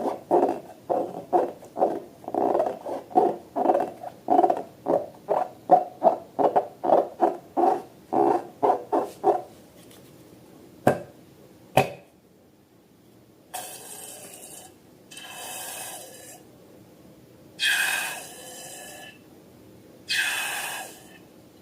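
Slime and balloons being worked by hand: a quick, even run of wet pulses, about three a second, that stops about nine seconds in, then two sharp clicks and four longer hissing squishes.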